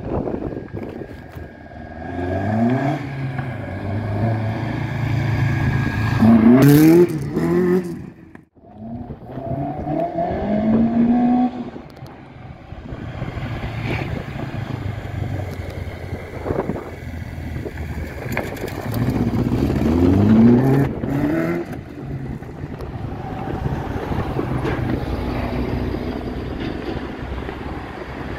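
Autobianchi A112 race car with a 1.6-litre engine on Dellorto DHLA 40 carburettors, accelerating hard through the gears. Its pitch climbs in several pulls, the loudest about seven seconds in, and cuts out briefly just after. The car pulls again around twenty seconds in, then runs at a steadier pitch.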